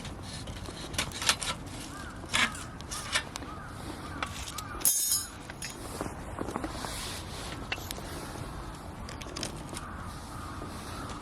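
Wood campfire with scattered sharp crackles and snaps over a steady low hiss, and one louder, longer snap about halfway through.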